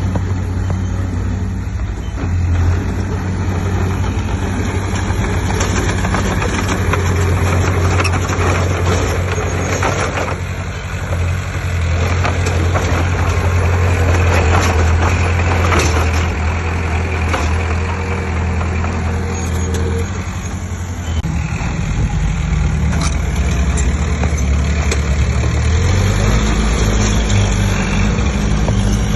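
Heavy diesel earthmoving machinery running under varying load, its low engine hum shifting pitch several times, with scattered clatter from the work.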